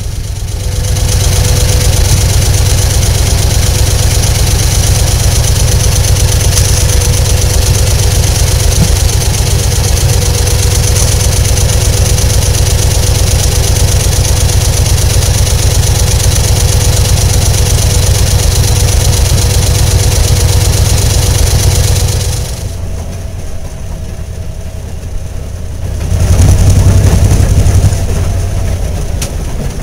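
Railroad motorcar (speeder) engine running steadily as the car moves slowly along the track, a loud low drone. The sound drops off about 23 seconds in and comes back loud about three seconds later.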